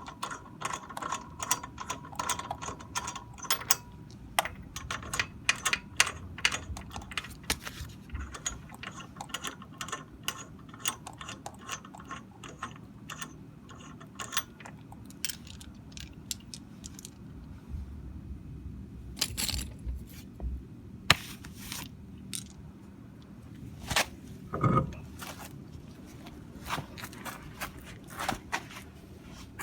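Hand tools at work on the car: quick runs of ratchet-like mechanical clicking for the first several seconds, then scattered sharp metallic clicks and knocks.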